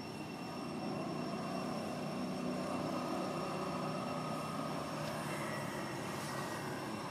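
Distant engine drone that swells gradually and then eases off slowly, over a steady high-pitched whine.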